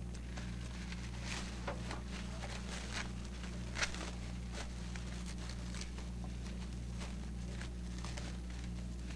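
Plastic sandwich wrapping crinkling and rustling as sandwiches are unwrapped by hand, in short scattered crackles, over a steady low hum.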